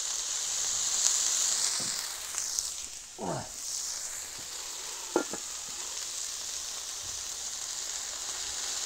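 Food sizzling on a 36-inch Blackstone flat-top griddle, a steady hiss that is louder for the first two seconds and then softer. A short falling squeak comes about three seconds in, and a sharp click about five seconds in.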